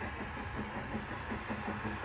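Steam train drawing slowly in toward a station platform: a steady low rumble of the locomotive and coaches on the rails.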